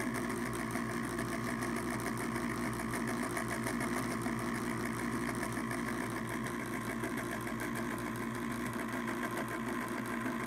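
Pellet stove auger gear motor, a ball-bearing type, running on a wooden cutting board that amplifies it: a steady hum with a quite clanky sound. It still works but does not sound the way a healthy auger motor should.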